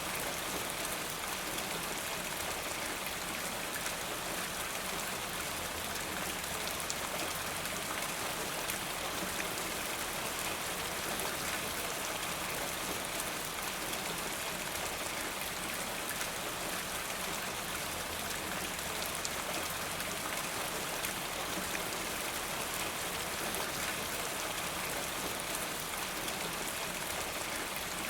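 Steady rain falling, an even hiss of many drops with faint pattering on a surface.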